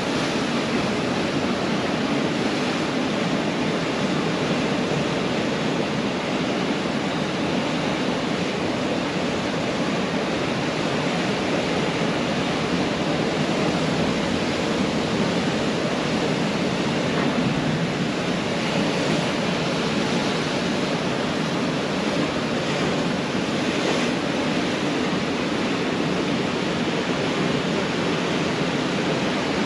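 Pacific Ocean surf washing on a beach: a steady, unbroken rush of waves.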